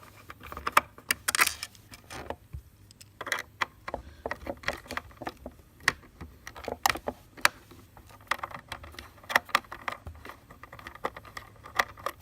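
Screwdriver backing tiny screws out of a plastic center-console trim piece: an irregular string of small clicks, ticks and light metal clinks as the screws come loose and are handled.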